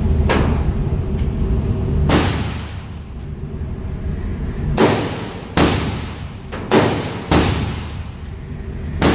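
Handgun shots in an echoing indoor range: about seven sharp reports at uneven intervals, each with a short ringing tail.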